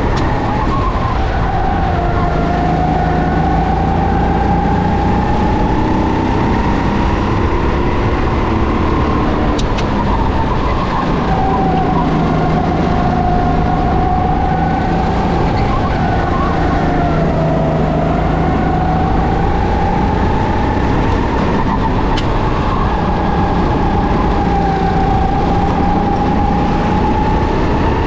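Racing kart engine running hard at speed, its pitch slowly falling and rising every few seconds as the kart slows for corners and accelerates out of them.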